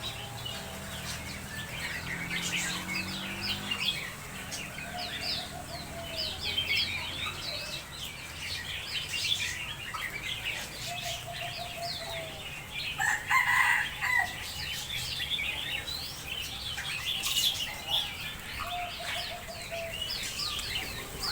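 Many small caged birds chirping continuously, with a rooster crowing loudly about thirteen seconds in and a few clucking calls from fowl.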